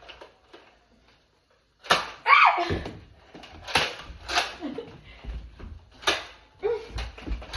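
Foam-dart Nerf blasters being fired in a string of sharp snaps, starting about two seconds in and recurring every second or so, with a child's short falling vocal exclamation among the first of them.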